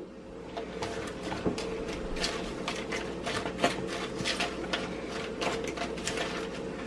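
A metal fork tossing dressed salad in a plastic container: rapid, irregular clicks and scrapes of the fork against the plastic, starting about half a second in.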